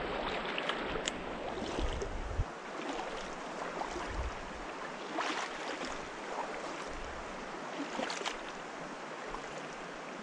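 Stream water rippling and splashing around a wader's legs, with a few sharper splashes. Low rumbles of wind on the microphone come in the first two seconds or so.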